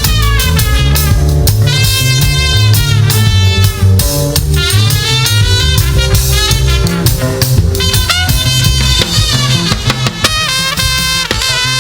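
Live gospel band music: a drum kit keeps a steady beat under pitched melody lines, with brass or horns prominent.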